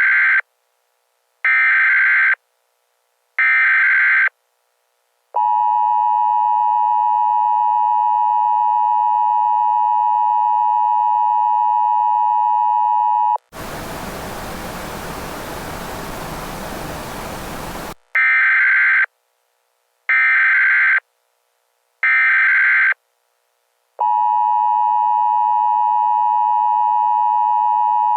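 Emergency Alert System SAME header: three one-second bursts of warbling digital data tones, then the steady two-tone EAS attention signal. About thirteen seconds in, a burst of white-noise static lasts a few seconds. Then the three header bursts and the attention tone start again.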